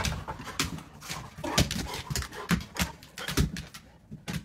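Labrador retriever's claws clicking and tapping on a hard tile floor in quick, irregular steps as the dog prances about, excited at being offered food.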